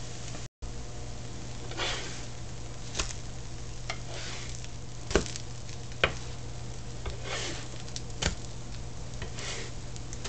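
Pancakes frying on a flat grill with a soft sizzle over a steady low hum, broken by a few short scrapes and sharp clicks. The sound drops out for an instant about half a second in.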